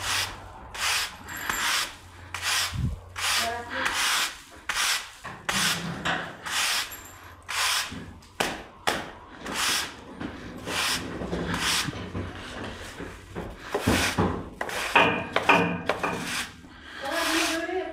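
Soiled calf bedding and manure being scraped along a barn floor in quick, even strokes, about one and a half a second.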